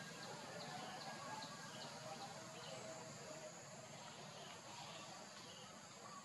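Faint forest ambience: a steady high insect drone with small repeated ticks, and a few short, faint bird calls.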